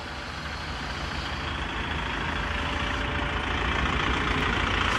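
Kubota tractor's diesel engine running, with a low rough pulse, growing steadily louder.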